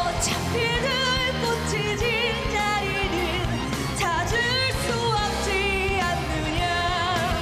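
A singer belting a Korean rock ballad over a full band, with high held notes, wide vibrato and upward slides into the high notes.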